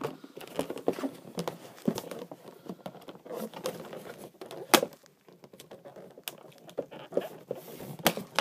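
A knife sawing and picking at plastic tie wraps and packing tape that hold a toy truck in its box: irregular scraping, rustling and small clicks, with sharper clicks about two, five and eight seconds in.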